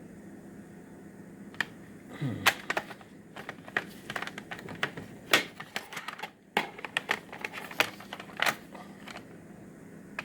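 Plastic cassette tape cases being handled: an irregular run of sharp clicks and clacks as they are picked up, opened and set down, starting about a second and a half in and stopping near the end.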